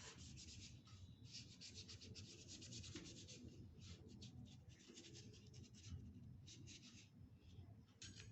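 Faint, quick strokes of a colouring tool rubbing across paper, coming in runs of rapid scratchy strokes with short pauses between them.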